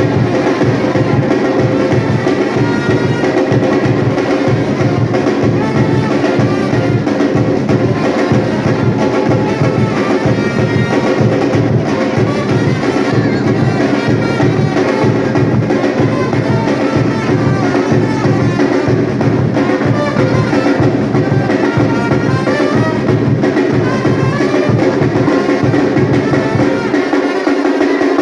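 A batucada drum group playing a fast, steady, driving rhythm, with held pitched notes sounding over the drums. The low drums drop out for about a second just before the end.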